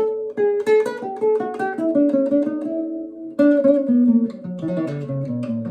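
Acoustic guitar played as a single-note melodic line plucked with the flesh of the thumb, no nail, giving a softer, more muted tone. The notes step downward, a few a second, with a louder note about three and a half seconds in.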